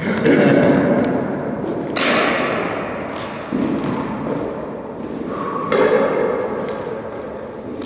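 Racquetball rally: the hollow rubber ball struck by racquets and smacking off the court's walls and floor, about four sharp hits spaced a second and a half to two seconds apart, each followed by a long echo in the enclosed court.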